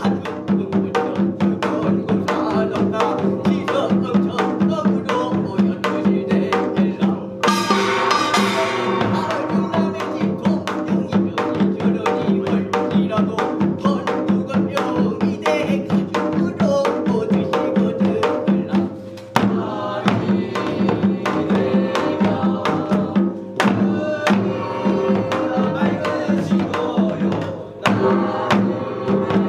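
Korean samul nori drums, janggu and buk, beating a fast, dense rhythm to accompany a binari, with a bright metallic gong clash about seven and a half seconds in and brief breaks in the beat near the end.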